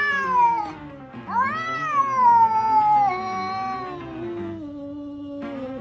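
Tabby house cat yowling, the drawn-out complaint of a startled, upset cat. One wailing call ends about a second in, and a second, longer yowl rises sharply and then slides slowly down in pitch. Background music plays underneath.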